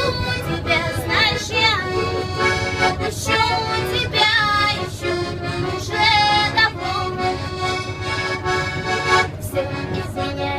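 A young woman singing a song live, her voice wavering and gliding between notes over steady held instrumental chords, with the low rumble of a commuter train running underneath.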